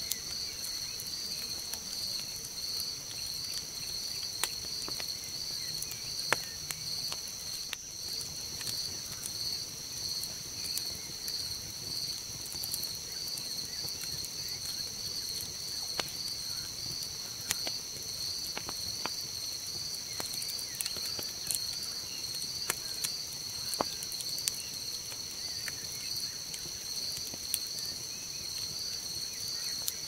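Burning campfire wood giving scattered sharp crackles and pops, over a steady high-pitched chorus of night insects trilling.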